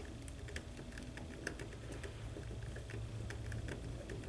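Small screwdriver turning a screw in the plastic screw-terminal strip of an alarm panel's circuit board to clamp a wire: faint, irregular little clicks and scrapes.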